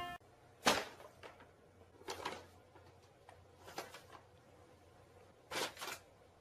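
Brown paper bag rustling in four short bursts, a second or two apart, as the cat inside it walks across a smooth floor.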